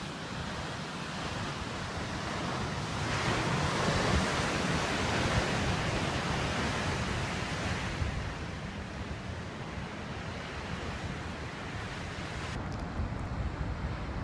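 Sea surf breaking and washing against the rocks at the foot of a cliff, a steady rush that swells louder for a few seconds in the middle, with some wind on the microphone.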